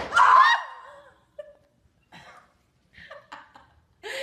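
A sharp smack right at the start, followed at once by a woman's short, high shriek, then bits of snickering laughter.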